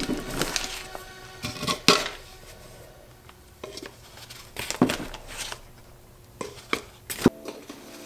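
A plastic bag of powder-coat powder rustling and a scoop scraping and knocking against a plastic cup as powder is scooped in, with a few sharp knocks, over faint background music.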